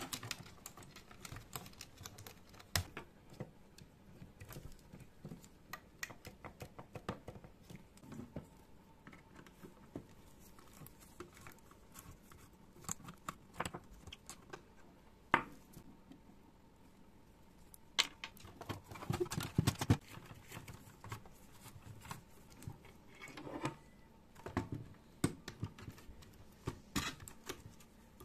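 Irregular small clicks, taps and rattles of plastic parts being handled and fitted as a video tape machine's housing and mechanism are reassembled by hand, with a denser spell of rattling and rustling about two thirds of the way through.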